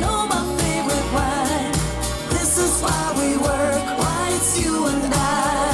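Pop song with a singing voice and a beat, played from a Kenwood DP-1050 CD player through a pair of bookshelf speakers and picked up by a microphone in the room.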